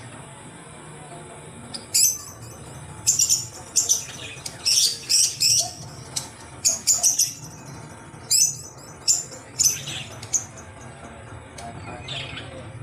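Pet bird chirping in about a dozen short, sharp, high-pitched calls at irregular intervals, over a steady low hum.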